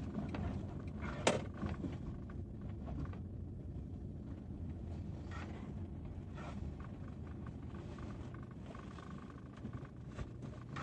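Car driving slowly, heard from inside the cabin: a steady low rumble of engine and tyres, with one sharp click about a second in.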